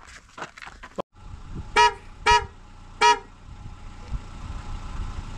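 A vehicle horn honks three short times, the first two about half a second apart and the third a little later. Under it a vehicle engine runs steadily, slowly getting louder. Before that, in the first second, there are a few short knocks.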